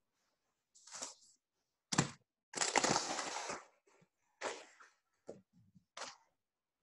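Scattered crackling and rustling from a call participant's microphone being handled. There is a sharp knock about two seconds in, then a rustling scrape lasting about a second, and a few smaller crackles after it.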